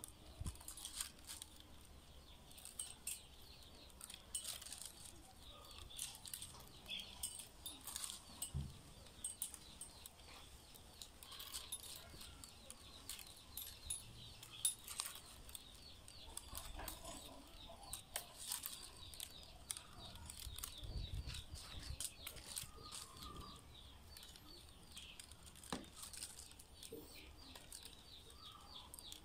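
Rattan strands clicking, creaking and rustling against each other as a basket is woven by hand, in irregular light clicks with a sharper snap now and then. Faint high chirping runs underneath.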